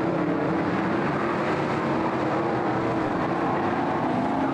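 BriSCA F1 stock car V8 engines running, a steady drone whose pitch wavers slightly.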